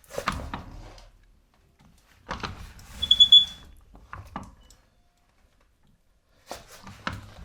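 Caravan overrun brake squeaking as it is worked: a short high squeal about three seconds in, among clunks and rattles of the moving mechanism. The squeak is the sign of a dry, ungreased overrun brake.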